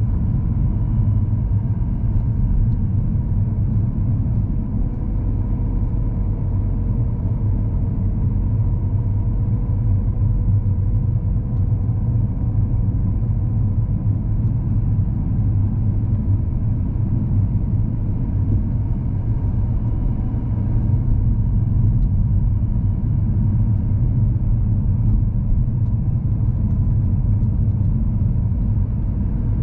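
Car engine and road noise heard from inside the cabin while driving: a steady low rumble with a faint thin whine above it.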